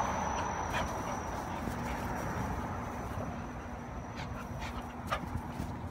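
Two dogs playing together, giving a few short, faint dog vocalizations over a steady background of noise and low hum.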